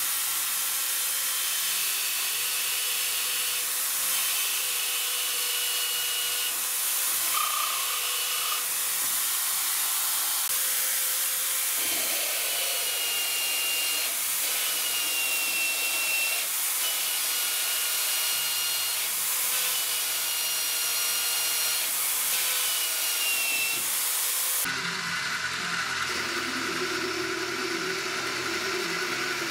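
Drill press spot-drilling and drilling holes in a metal disc: a steady high hiss of the spindle and cut, with short high squeals from the bit several times. Near the end it changes to a metal lathe running while a twist drill bores into the spinning workpiece, a lower, steadier hum.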